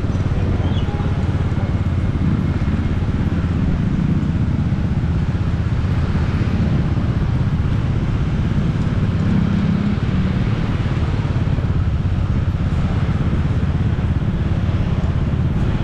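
Motorbike running at a steady pace, a continuous low rumble with road noise and no letting up.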